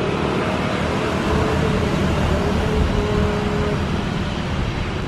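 Jet engines of a Boeing 737 running steadily as the aircraft rolls slowly along the runway: a steady rumble and hiss with a faint whine in it.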